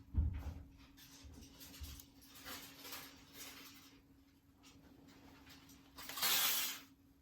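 Wood fire in a fireplace crackling, with scattered small pops, a low thump just after the start and a louder half-second burst of noise about six seconds in.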